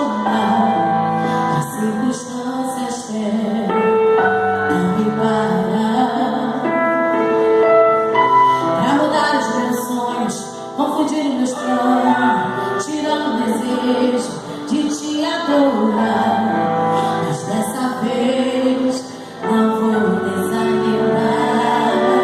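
Music with singing, led by a woman's voice, with held notes that shift in pitch and carry on without a break.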